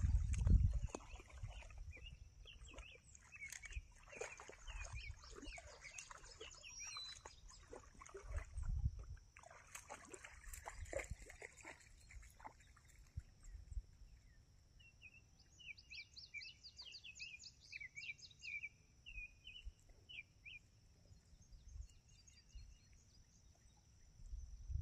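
Outdoor ambience of birds chirping and singing, with a quick run of chirps about two-thirds of the way through, over a steady high whine. A low rumble, like wind or handling on the microphone, is loudest at the start and about nine seconds in.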